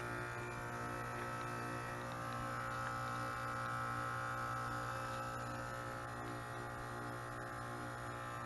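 Carrier 2-ton heat pump outdoor unit running through its defrost cycle: a steady compressor hum with several steady tones above it.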